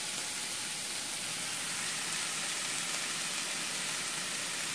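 Broccoli florets frying in oil in a nonstick pan: a steady sizzle.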